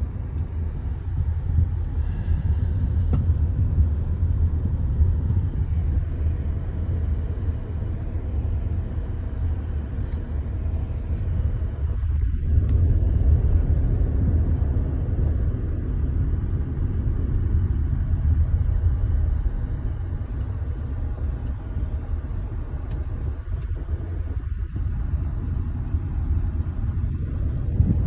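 A car driving along a road, heard from inside: a steady low rumble of engine and tyre noise.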